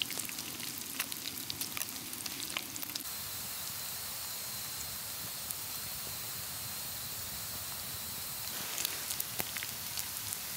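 Streaky bacon sizzling in a non-stick frying pan over a gas canister camp stove: a steady frying hiss, with sharp crackles and pops over the first few seconds and again near the end.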